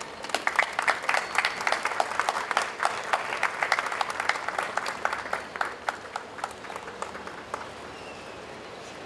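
Audience applauding at the end of a speech. The clapping is dense for about five seconds, then thins out and dies away near the end.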